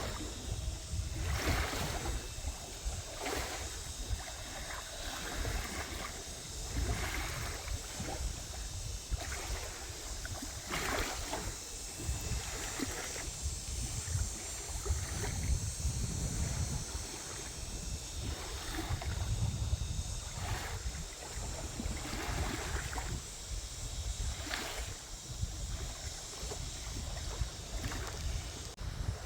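Water lapping against a dock in small, irregular splashes every second or two. Wind rumbles low on the microphone, and insects keep up a faint, steady high drone.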